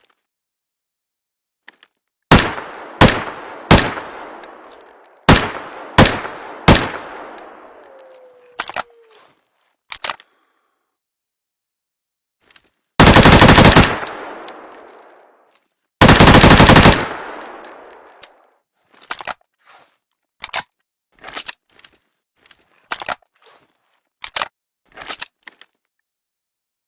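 Skorpion submachine gun firing: six single shots in two quick groups of three with echoing tails, then two full-auto bursts of about a second each. A run of quieter short clicks and clacks follows.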